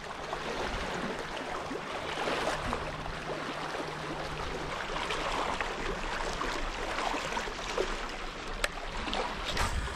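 Small waves lapping and trickling against a rocky shoreline, a steady wash of water with small splashes. A faint low hum sits underneath during the first half.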